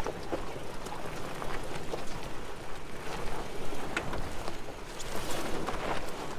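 An SUV creeping over a rocky off-road trail: a steady crunch of tyres on gravel and rock, with scattered ticks and knocks.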